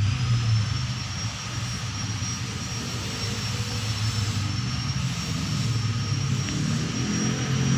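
A steady low hum with a faint high-pitched whine above it, holding level throughout.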